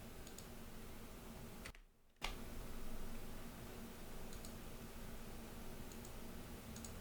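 Scattered faint clicks of a computer mouse and keyboard over a steady low hum. The sound cuts out completely for about half a second around two seconds in.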